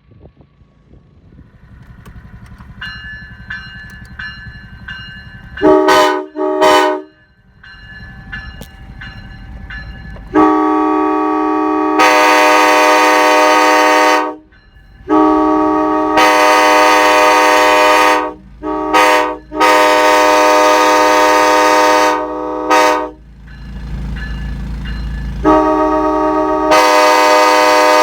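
Five-chime locomotive air horn, run off a truck-mounted compressor setup, sounding a chord of several steady notes. A faint first note, then two short toots about six seconds in, then a series of long blasts several seconds each with brief breaks between them.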